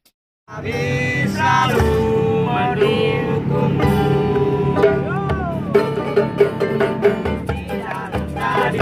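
Street band of ukuleles, an acoustic guitar and a small strap-hung drum strumming and beating a steady rhythm, with voices singing along. The music starts about half a second in, after a brief silence.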